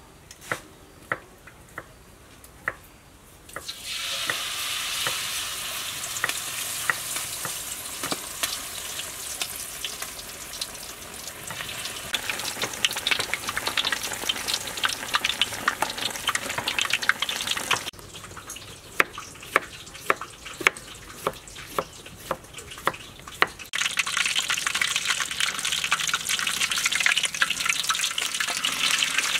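Whole chickens deep-frying in hot oil in a large wok: steady sizzling and crackling with sharp pops of spattering oil. The sizzle swells about four seconds in, drops lower past the middle with a run of loud pops, then comes back loud near the end.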